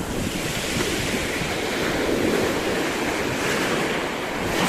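Sea waves washing, with wind buffeting the microphone: a steady rushing noise.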